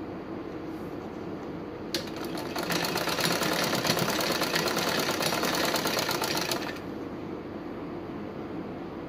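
Usha sewing machine stitching a folded cloth strip: a click about two seconds in, then a fast, even clatter of stitching for about four seconds that stops abruptly.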